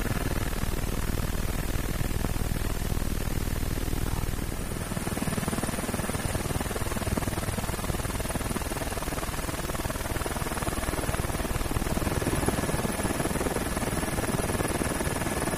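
Helicopter running steadily, heard from aboard, a dense rushing noise with a faint high whine. The sound shifts about five seconds in.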